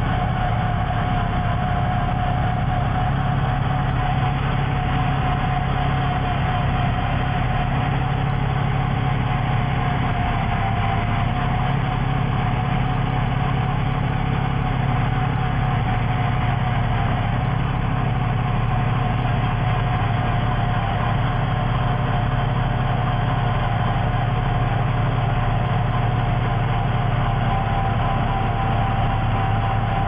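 Truck-mounted rotary snow blower running steadily as it bores into a deep snow bank and throws snow out of its chute: the truck's engine drones low under load, with a steady whine from the blower above it.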